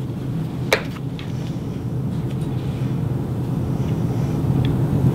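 A steady low hum, with one sharp click about a second in and a few faint ticks.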